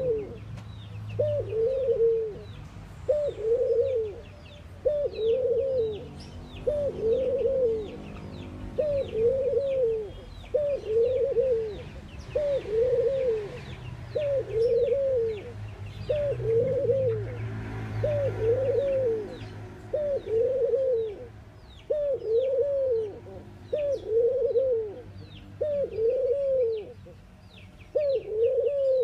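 Collared dove cooing over and over, about one coo a second, each coo rising and falling in pitch. Thin, faint chirps of small birds sound behind it.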